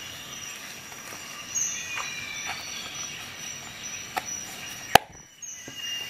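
Hands handling Swiss Army knife pouches of leather and nylon: faint rubbing and scattered light clicks, with one sharp click about five seconds in.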